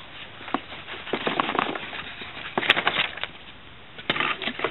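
Packaging being handled: irregular crinkling and rustling of plastic and paper with sharp clicks and taps, louder bursts a little past halfway and again near the end.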